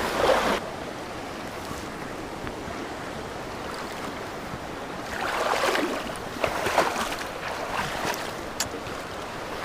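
Small mountain stream rushing steadily, with a few louder irregular swells of movement or splashing noise about five to seven seconds in.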